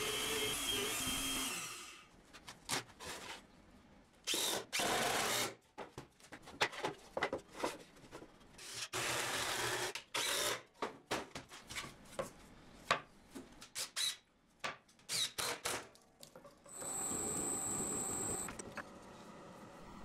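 Intermittent workshop noise: short runs of a power drill with knocks and clatter of metal and wood pieces in between. Near the end comes a steady run of about a second and a half with a high whine.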